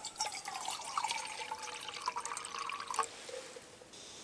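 Water poured from a bottle into a small stainless steel pot, splashing and trickling for about three seconds before it stops sharply. Just before the end, a steady high hiss begins as the gas valve of the Primus canister stove is opened.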